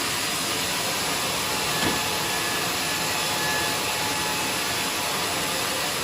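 Band sawmill running, its blade cutting through a teak log: a steady, even noise with a faint thin whine.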